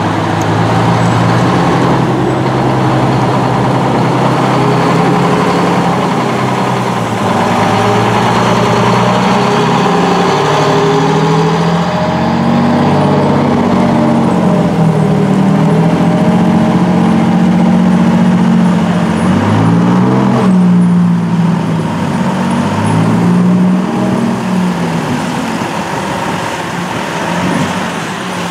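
Engines of fire trucks and other emergency vehicles running as they drive slowly past one after another, the engine pitch rising and falling as they pull through.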